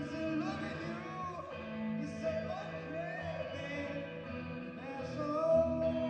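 Electric guitar playing sustained chords while a man sings over it at the microphone.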